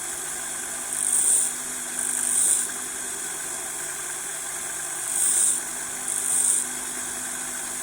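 A steady machine hum with four short bursts of high hiss, each about half a second long, coming in two pairs.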